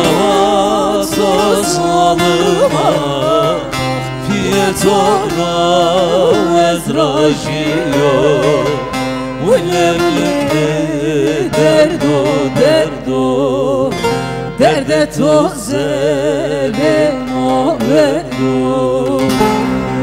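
Turkish folk song performed live: ornamented singing with heavy vibrato over plucked bağlamas (long-necked saz).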